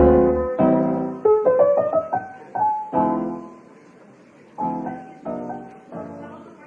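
Piano music: struck notes and chords that ring and die away, a short pause a little past the middle, then a few softer notes fading out.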